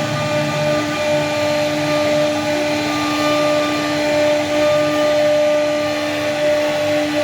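CNC router spindle running on PVC board, a steady motor whine over a rushing noise.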